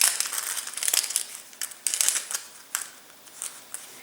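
Clockwork wind-up toy mouse clicking: a dense crackle of small irregular clicks that thins out and fades about three seconds in.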